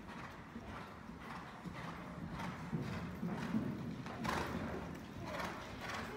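Hoofbeats of a show-jumping horse cantering on a sand arena surface, with a jump over a fence about four seconds in.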